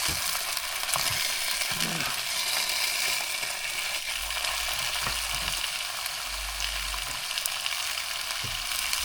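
Sausages and burgers sizzling in a pan on a camping cooker: a steady crackling hiss.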